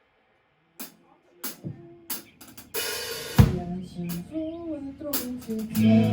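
Rock band starting a song: a few separate drum hits and a cymbal crash, some sliding bass or guitar notes, then the full band comes in on a held chord near the end.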